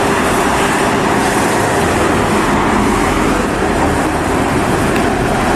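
Fiat-based minibus moving along a town street with traffic noise: a steady rushing sound with a steady hum running under it.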